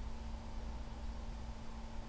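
Steady background noise: a low rumble and an even hiss, with a faint steady hum running under it.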